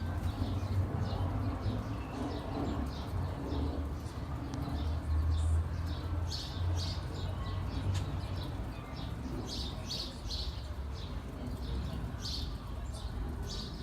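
Nestling birds chirping: short, high cheeps repeated in quick clusters, thickest around the middle and near the end, over a low steady hum.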